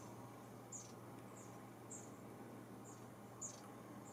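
Faint, short, high-pitched chirps from a small animal, repeating at an uneven pace of about one to two a second, over a steady low hum.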